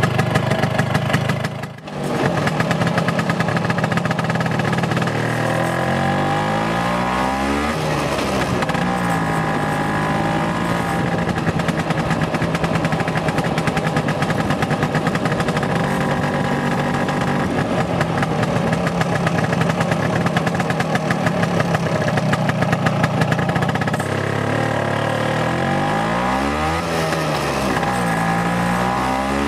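Vespa PX scooter's two-stroke single-cylinder engine running on the move, its sound dipping briefly about two seconds in. It revs up and drops back as it changes through the gears about a quarter of the way in, and again near the end.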